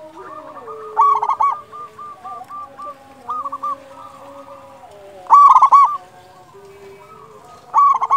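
Zebra dove (perkutut) cooing in loud, rapid bursts of warbling notes about a second in, midway through and again near the end. Softer, lower cooing runs between the bursts.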